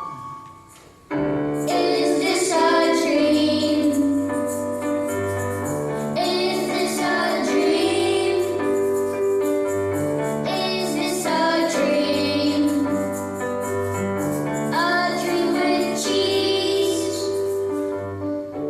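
Live performance of a pop song by teenage campers: a young voice singing over keyboard and bass. The music drops to a brief lull and comes back in about a second in.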